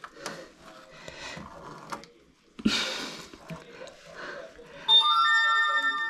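Hands working plastic parts in the drain area of an upturned washing machine: rustling and small clicks, with one short loud scrape near the middle. Near the end an electronic chime of several held tones sounds for about a second.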